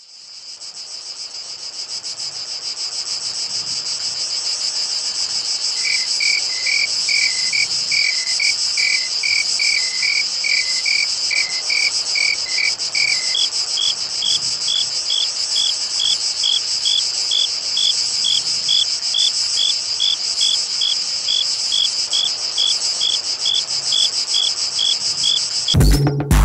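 Dense chorus of crickets, a fast high shrilling that fades in over the first few seconds. About six seconds in a separate chirping at about three chirps a second joins it, and about halfway through a higher-pitched chirp at a similar rate takes over; the chorus cuts off suddenly near the end.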